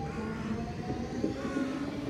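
Copenhagen S-train electric multiple unit running, its traction motors whining in several shifting tones over a steady rumble. One whine starts rising in pitch in the second half.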